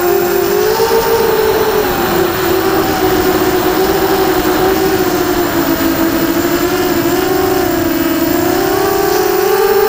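QAV250 racing quadcopter's brushless motors and propellers whining, heard close from the onboard camera. The pitch wavers with throttle, dips a little past the middle, then rises near the end.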